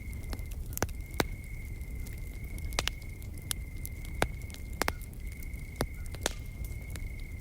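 Wood fire crackling, with irregular sharp pops over a low rumble of flame, alongside a steady, high, unbroken insect trill.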